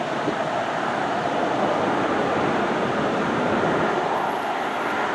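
Jet noise from a landing Boeing 777-300ER and its two GE90 turbofan engines: a steady rush that swells over the first second or two and then holds.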